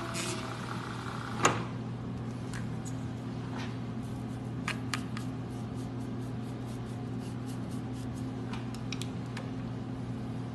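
Vertical milling machine running with a steady low hum, its taper reamer no longer cutting in the aluminium steering knuckle. One sharp click about a second and a half in, then light scattered ticks as aluminium chips are brushed away from the reamed hole.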